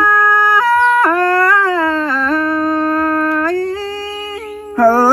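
A singer draws out long vowel notes in Tai call-and-response folk singing. The pitch steps and slides between long steady tones and fades briefly near the end, then a new loud note comes in.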